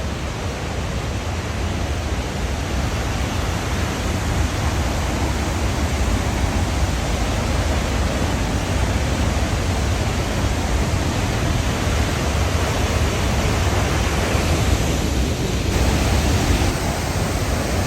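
Loud, steady rush of a large waterfall in full flow, swollen by heavy rain the day before.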